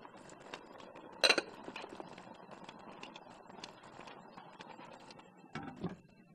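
Ceramic plate clinking against a ceramic bowl as it is set down on it: one sharp clink about a second in, light small knocks of crockery on the metal steamer rack, and a short clatter near the end.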